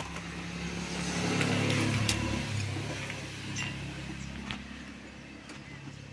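A motor vehicle's engine passing by, swelling to its loudest about two seconds in and then fading away, with a few light clicks over it.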